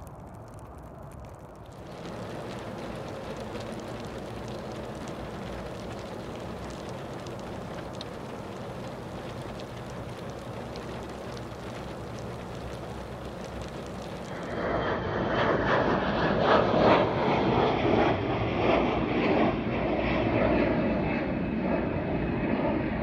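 Jet airliner noise in two parts: a steady, moderate rumble, then about two-thirds of the way in a much louder, rough, crackling rumble from an Embraer E175's twin GE CF34 turbofans as it climbs out after takeoff.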